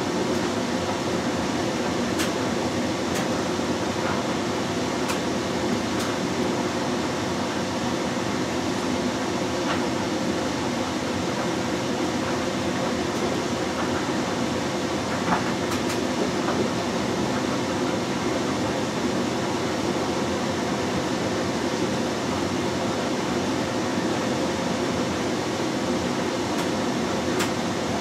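LG Direct Drive 6 Motion front-loading washing machine (FH4U2VCN) in its main wash, the drum turning and tumbling wet, soapy laundry with a steady sloshing and churning. A few faint clicks come through now and then.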